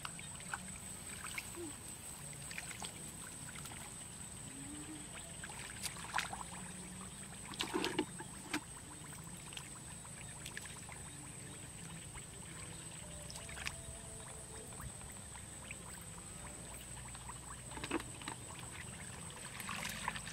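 Hands splashing and squelching in shallow muddy water while groping for fish, with a few sharper splashes: around six seconds in, a cluster near eight seconds, and near the end.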